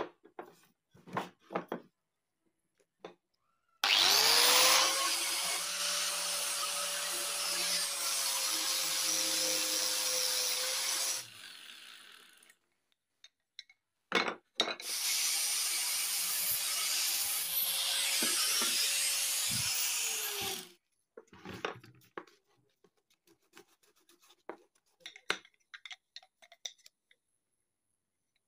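A handheld electric power tool working wood in two runs of about seven and six seconds. Each run starts with a rising whine as the motor spins up and ends with a falling whine as it winds down. Light knocks of wooden pieces being handled come before and after.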